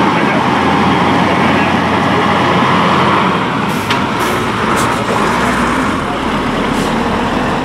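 Diesel engine of a Mercedes-Benz heavy tow truck running steadily as the truck drives slowly past, with a few short, sharp high sounds about halfway through.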